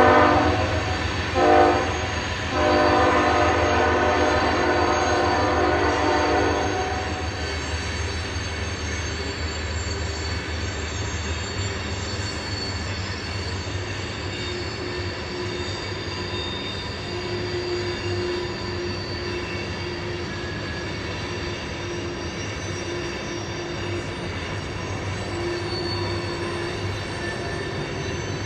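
A CSX freight locomotive's horn blows, briefly broken twice, and stops about six and a half seconds in. Then the manifest's freight cars roll past with a steady rumble and a faint, on-and-off wheel squeal.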